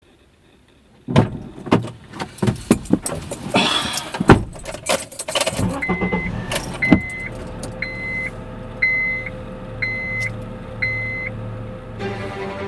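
Keys jangling and a run of clicks and knocks as someone settles into a car's driver's seat, then the car's engine running with a warning chime beeping about once a second, six times.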